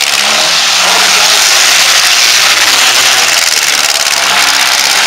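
Engines of several four-cylinder compact demolition derby cars running hard at high revs as they spin their wheels in the mud. A loud, steady din with no distinct crash.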